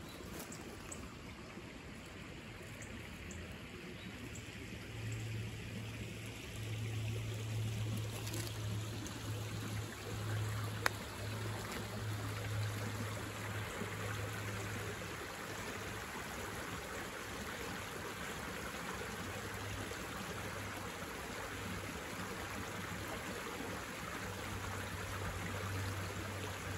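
Shallow rocky creek trickling and babbling over stones, growing louder a few seconds in. A low rumble comes and goes underneath, and there is one sharp click about eleven seconds in.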